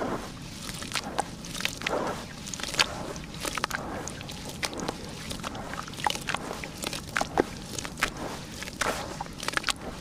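Hands squeezing and kneading a wet sand-cement and dirt slurry in a bowl: irregular squelches with many small sharp wet pops and clicks.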